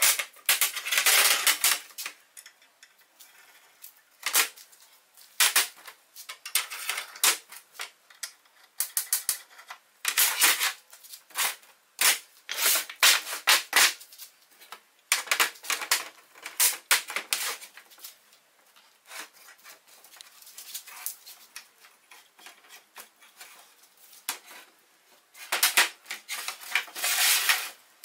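Homemade pipe clamps being handled on a steel-topped workbench: steel pipes and red-painted clamp heads clink and rattle against each other and the bench, with wooden blocks knocked down onto it. The sound is irregular clicks and knocks, bunched into short clattering spells.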